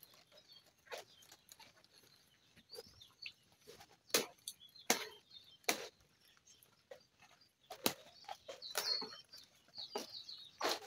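Irregular crisp snaps of sukuma wiki (collard greens) leaves being broken off the stalks by hand, with faint bird calls in between.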